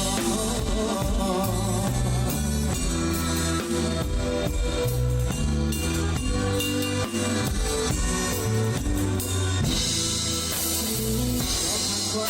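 A live band plays an instrumental passage with no singing. A drum kit stands out, with kick, snare and rimshots, over a busy bass line and sustained pitched notes. Cymbals wash in about ten seconds in.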